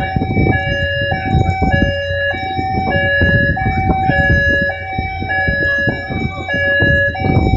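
Two-tone hi-lo alarm of the ammonia tanks' deluge system, switching between two pitches about twice a second, over a steady loud rushing noise.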